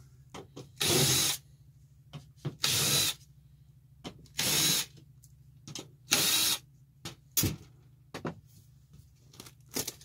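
Cordless drill/driver backing out the sheet-metal screws of an air handler's access panel: four short runs of the driver about a second and a half apart, then a few knocks and clicks as the screws and panel are handled.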